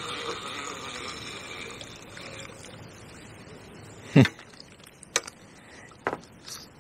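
A single loud, dull knock about four seconds in, followed by a few sharp, light clicks from a fishing rod and reel being handled.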